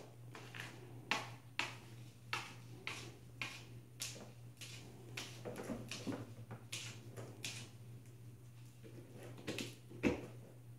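A young kitten pawing, kicking and chewing at a person's finger, making a run of short soft scratchy clicks, roughly two a second, from its claws and fur on fabric and skin, with one louder click near the end. A steady low hum runs underneath.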